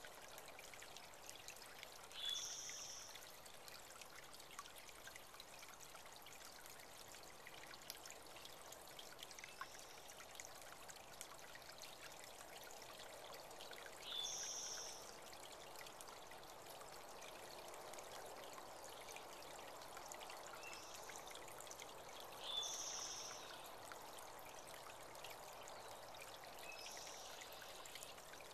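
Small spring-fed creek trickling steadily, with a bird giving a short, high chirp three times, spaced several seconds apart, and a few fainter chirps between.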